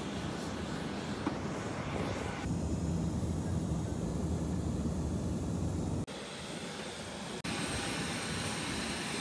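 Aircraft noise on an airport apron, then the steady low drone of an airliner cabin in flight, changing abruptly at each cut. Near the end it gives way to broader outdoor noise with more hiss.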